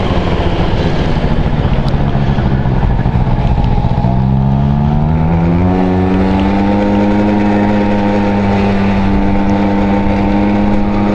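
Honda Dio AF27 scooter's small two-stroke engine running under way. About four seconds in, the engine note rises over a couple of seconds as the scooter speeds up, then holds steady at the higher pitch.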